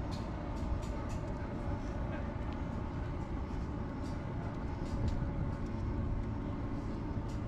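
Outdoor boardwalk ambience: a steady low rumble with scattered faint clicks and ticks over it.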